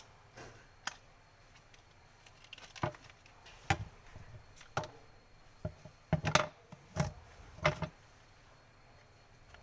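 Hard parts of a glass mop being handled during its repair: about eight irregular knocks and clatters, a few quick ones close together about six seconds in.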